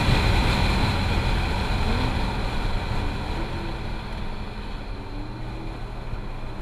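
C7 Corvette Grand Sport's 6.2-litre V8 running hard, with heavy road and wind noise, heard from inside the cabin. The sound comes in suddenly at its loudest and eases off over the following seconds as the car approaches a corner.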